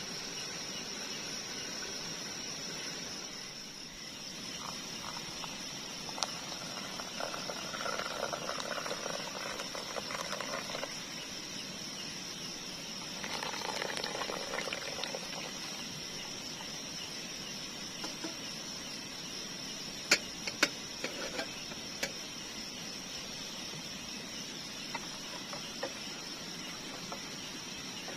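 Steady, high-pitched chirring of an evening insect chorus. Over it come two stretches of louder handling noise early on and a few sharp clicks about two-thirds of the way through.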